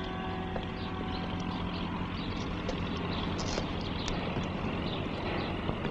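Steady street traffic noise: a low, even hum of engines, with the last notes of music dying away about half a second in.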